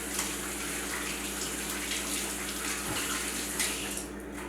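Kitchen tap running, water splashing steadily as sticky breading is rinsed off the hands, turned off near the end.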